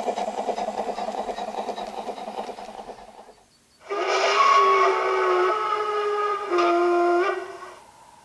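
A garden-scale model train runs past with a fast, rhythmic running sound that fades out about three seconds in. After a short lull, a steam locomotive whistle sounds one long, several-toned blast of about four seconds. It drops slightly in pitch partway through and then cuts off.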